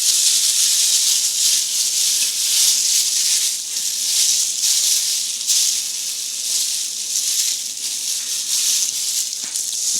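Ribeye steak sizzling in a hot pan: a steady, dense crackle of spitting fat.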